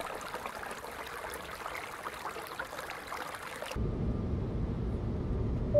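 Shallow stream trickling and babbling over rocks. About four seconds in, it cuts suddenly to the steady low rumble of a jet airliner's cabin in flight.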